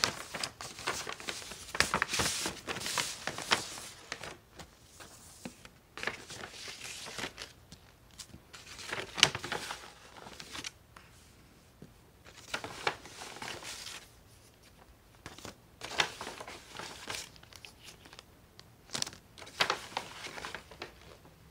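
Paper rustling and crinkling in irregular bursts with quiet gaps between them as a manila envelope is opened and its paper contents are pulled out and handled.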